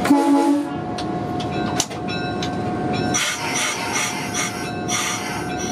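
Cab sounds of an EMD GP9 diesel locomotive getting a train under way: the engine running and steady rail noise, with a short loud tone right at the start. From about three seconds in comes a repeating high squeal of wheels on the rail.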